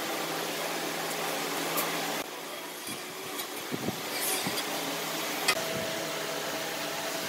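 Steady mechanical hum in a workshop, with a few soft knocks and a sharp click as a metal straightedge and marking tools are handled on a wooden slab.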